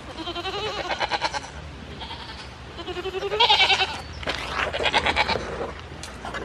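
Goats bleating: three long, quavering bleats in a row.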